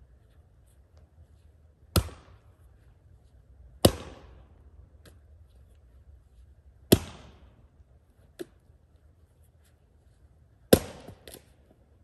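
Splitting axe striking firewood rounds four times, each a sharp crack with a short ringing tail, unevenly spaced a few seconds apart. There are two lighter knocks, one between the third and fourth strikes and one just after the last.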